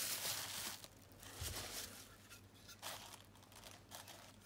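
Bubble wrap crinkling and rustling as it is handled and pulled out of a cardboard box, in several short bursts, the longest in the first second.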